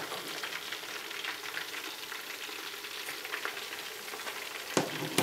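Corn and shrimp kakiage fritter deep-frying in a pot of hot oil: a steady crackling sizzle. A sharp knock sounds near the end.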